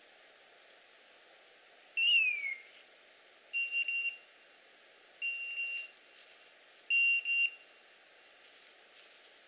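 Electronic beeper collar on a hunting setter sounding at one high pitch: first a short falling tone, then short steady beeps in small groups about every one and a half to two seconds.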